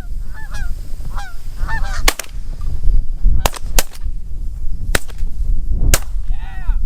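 Canada geese honking, then a volley of about six shotgun shots over some four seconds, two of them nearly together, as the hunters fire on the incoming flock; more honking follows the last shot. Wind rumbles on the microphone underneath.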